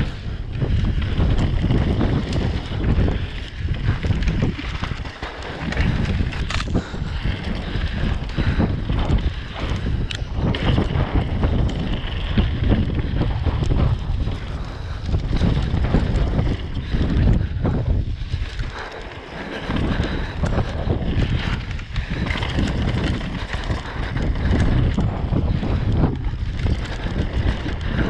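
Wind buffeting an action camera's microphone on a fast downhill mountain-bike run, with a heavy low rumble and many short knocks and rattles from the bike going over rough ground.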